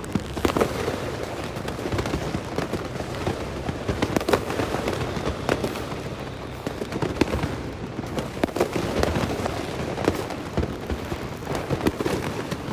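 Fireworks going off in many places at once: irregular sharp bangs and cracks over a continuous crackle of distant salutes.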